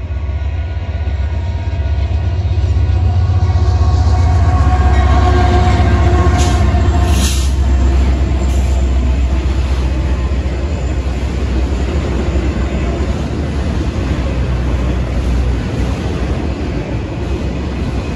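Union Pacific freight train's lead diesel locomotives, a GE AC44CW and an EMD SD70AH, passing close by with a heavy low engine rumble that is loudest about four to seven seconds in, with steady tones over it that fade out by about eight seconds in. A short sharp burst of noise comes about seven seconds in, then the autorack cars roll by with steady wheel noise.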